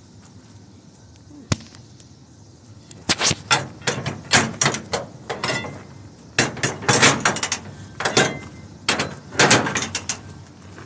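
Rustling and scuffing handling noise from a phone carried close against the body: a single sharp click about a second and a half in, then irregular bursts of scraping noise from about three seconds on.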